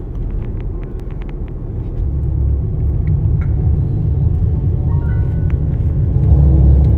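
Low rumble of a car's engine and road noise heard from inside the cabin while driving, swelling louder about two seconds in and again near the end.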